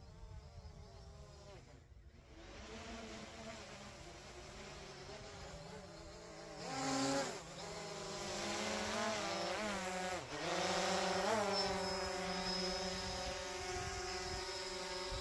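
Quadcopter drone's propellers buzzing, getting louder as it flies closer, their pitch wavering, dipping and rising as it manoeuvres. A brief rush of noise about halfway through.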